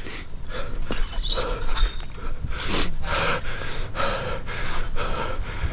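A person breathing hard and panting from exertion, in a run of quick, noisy breaths, over steady low rumble from wind and rain on the microphone.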